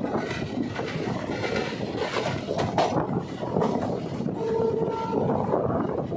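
Train running: a steady rumble and rail noise from the moving train. A brief steady tone sounds about four and a half seconds in.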